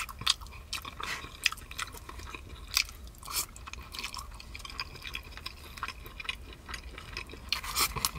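A person chewing food, with irregular small clicks and smacks of the mouth.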